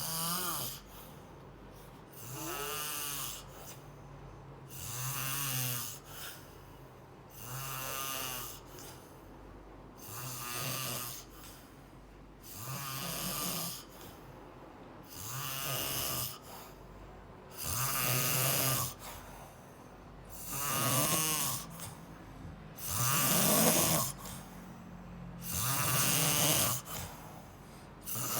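Snoring: a rhythmic snore on each breath, about every two and a half seconds, growing somewhat louder in the second half.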